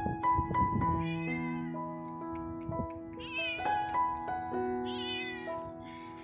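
A stray cat meowing several times, each meow a drawn-out, high, wavering call, over background music of held keyboard-like notes.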